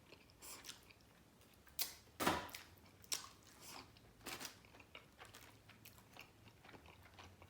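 A person chewing a mouthful of food, making irregular chewing clicks, with a few louder bites about two and three seconds in.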